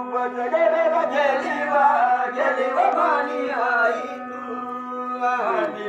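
Devotional singing: a voice sings long, gliding melodic phrases over a steady held drone note. The singing drops quieter for a moment about four seconds in.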